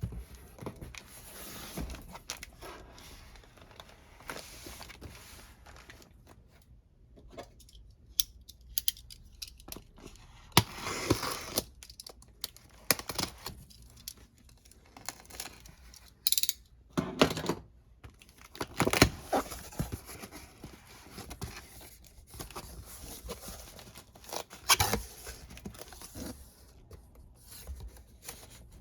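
Shipping boxes of discs being unpacked by hand: packaging tearing, crinkling and rustling in irregular bursts, with small sharp knocks of handling.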